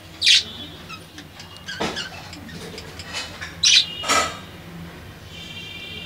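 Budgerigars calling: a few short, sharp, high chirps, the loudest about a third of a second in and again near four seconds, then a steady warbling chatter near the end.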